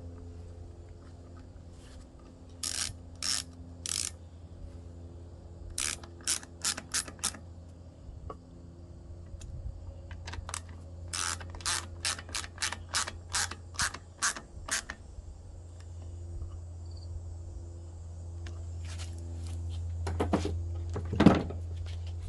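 Ratchet wrench clicking in short bursts, a few strokes at a time and then a quicker run of about a dozen, as the lawnmower's air box is fastened back on. A steady low hum sits underneath.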